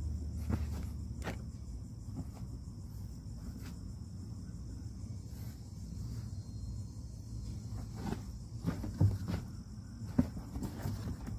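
Steady high buzz of insects chirping over a low steady hum, with scattered soft taps and rustles of a hand on a fabric seat cover and a few sharper knocks near the end.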